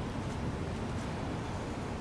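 Steady low rumbling outdoor background noise, with a few faint light ticks.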